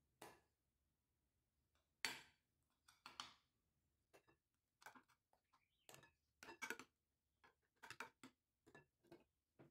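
Quiet, irregular scrapes and clinks of a metal spoon against glass as thick mascarpone cream is scooped from a glass bowl and spread in a glass baking dish.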